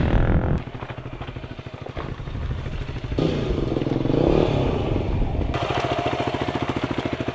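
Yamaha dirt bike engine running at low revs, with a brief rev rising and falling about halfway through. The sound changes abruptly several times.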